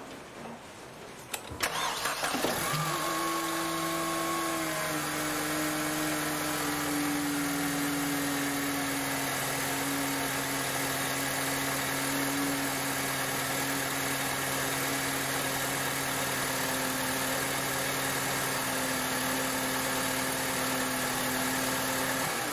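Mercedes C180 Kompressor's supercharged 1.8-litre four-cylinder engine starting after a brief crank, on freshly fitted spark plugs and ignition coils. It runs at a raised idle for a couple of seconds, then drops in pitch and settles into a steady idle.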